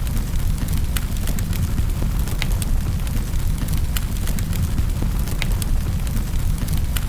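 Wood fire burning in a fireplace: a steady low rumble of flames with sharp, irregular crackles and pops several times a second.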